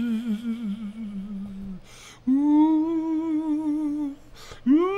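A voice humming long, wordless held notes: a first wavering note, then two steady notes each a step higher, with short gaps between them. The last note slides down as it ends.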